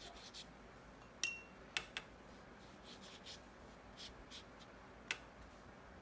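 Faint swishes of a watercolour paintbrush stroking paper, with a few sharp taps, the first ringing briefly.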